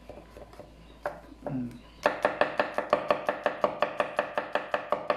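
A chef's knife cutting garlic cloves on an end-grain wooden board. There are a few light, slow cuts at first; from about two seconds in comes fast, even chopping of about seven loud knife strikes a second against the wood.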